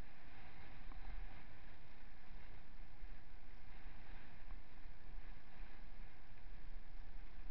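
Steady rumble and hiss of a mountain bike rolling along a rough dirt road, its tyres on the packed earth mixed with wind on the microphone, with a few faint rattling ticks.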